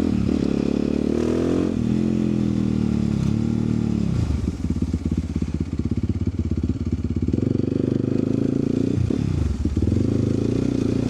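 Vehicle engine and exhaust under way, the revs rising and dropping several times as the throttle is opened and closed. For a few seconds in the middle the revs fall low and the separate exhaust beats come through unevenly.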